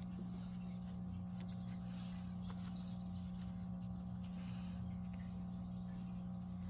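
Steady low electrical hum of room background, with a few faint light ticks from handling.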